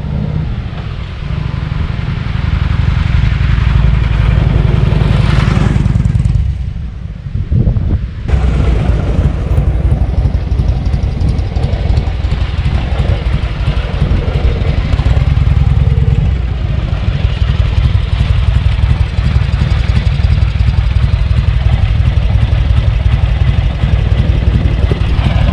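Harley-Davidson FLH Shovelhead V-twin engine running, in a break-in ride after repair of an abnormal engine noise. Its level drops briefly about six seconds in, then picks up again and runs steadily.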